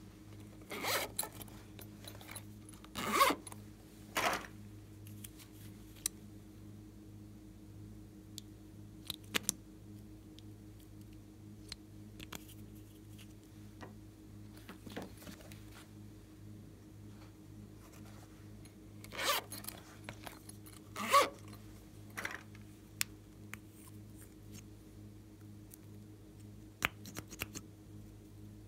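Zipper on a silicone pop-it pouch pulled in short runs: three near the start and three more about twenty seconds in, with small clicks between them over a faint steady hum.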